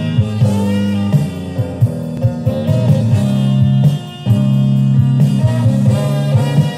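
Guitar-led rock music with bass and drums, played from a vinyl record on a Goldring Lenco GL72 turntable and heard through a small speaker.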